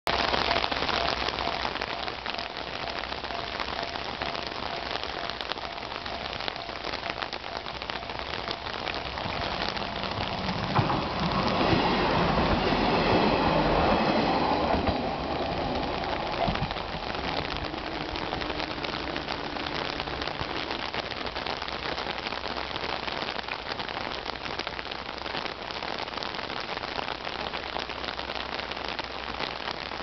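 Heavy rain hissing steadily. About ten seconds in, the sound of a JR diesel railcar passing over the level crossing swells up over the rain, loudest between about 11 and 15 seconds, then fades back under the rain.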